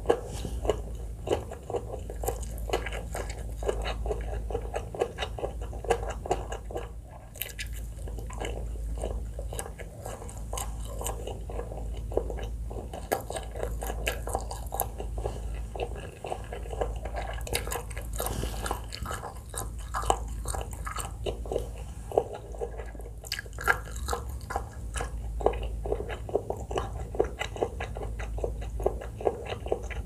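Close-miked chewing of a mouthful of food with the lips closed: a continuous run of small wet clicks and crackles, with an occasional sharper crunch.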